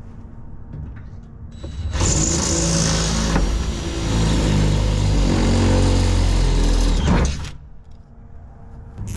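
Electric drill boring down through the truck bed, starting about two seconds in and running for about five seconds with its motor pitch wavering under load, then stopping and winding down.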